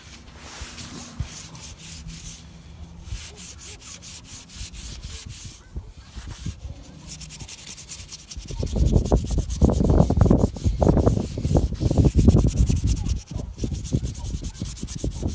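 Repeated scratchy strokes of the spray-foam roof surface being scrubbed or scraped to clean out dirt before a patch. About eight seconds in, a much louder low, fluttering rumble joins in.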